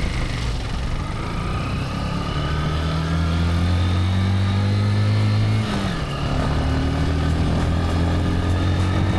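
150cc off-road motorcycle engine running under way, rising slowly in pitch as it pulls. About six seconds in the pitch and level drop briefly, as with a gear change, and then it climbs again.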